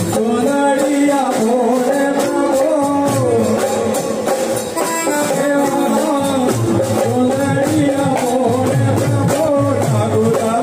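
Live raas kirtan, devotional song: a voice singing a melody over keyboard and a drum kit keeping a steady quick beat, played loud through a sound system.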